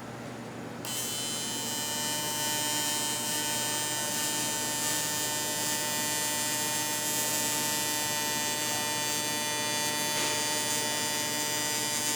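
AC TIG welding arc on aluminum, a steady electrical buzz with a hum. The buzz is briefly weaker about the first second, then holds steady.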